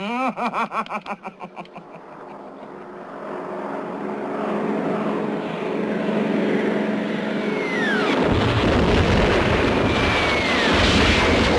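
A man chuckles briefly, then the engine drone of two approaching warplanes swells steadily. About eight seconds in, a falling bomb whistle is followed by a heavy explosion, and a second whistle and blast come near the end.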